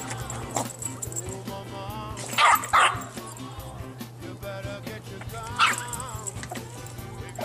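Small dog barking: two sharp barks about two and a half seconds in and one more near six seconds, over background music.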